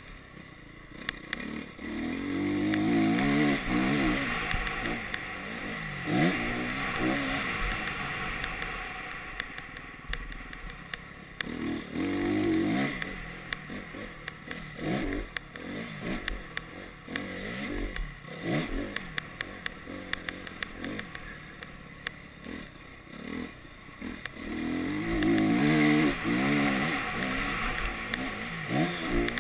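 Honda CRF four-stroke single-cylinder motocross bike being ridden hard, its engine revving up and falling back again and again through the gears. It is loudest in three full-throttle pulls, about three seconds in, around twelve seconds and near the end, heard from a camera on the bike with rushing noise and clatter between the pulls.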